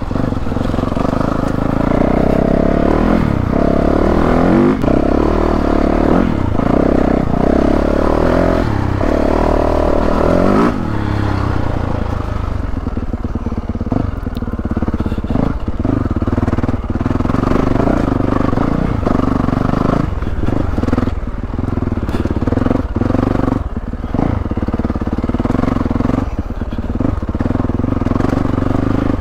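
2022 Yamaha YZ450F's 450 cc single-cylinder four-stroke engine running under a working throttle, pulling hardest for the first ten seconds or so. It then drops lower and choppier, with frequent knocks and clatter as the bike rides over a rough trail.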